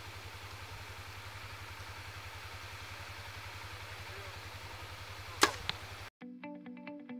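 A compound bow shot: one sharp snap of the released string about five seconds in, followed a moment later by a fainter knock, over a steady low hum. Guitar music cuts in near the end.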